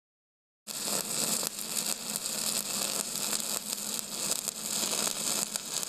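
Steady crackling hiss of a flux-core wire-feed welding arc, starting abruptly under a second in.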